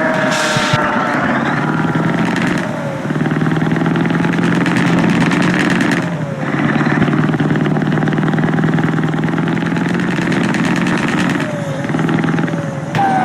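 Scania K124 bus engine running loudly and steadily, its note dipping briefly three times, about three, six and eleven seconds in, each dip with a short falling whine.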